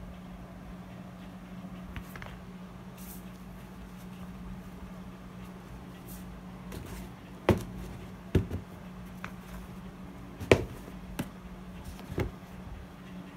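Handling noise: a few sharp knocks and taps as the shoes are handled, the loudest about halfway through and again a few seconds later, over a steady low hum.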